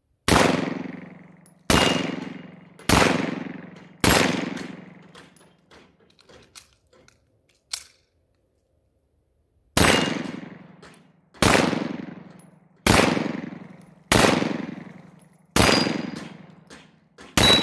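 C96 broomhandle Mauser pistol fired ten times: four shots about a second apart, then a pause of about five seconds with a sharp click, then six more shots at a slightly slower pace. Each shot has a trailing echo, and a short ring follows a few of them.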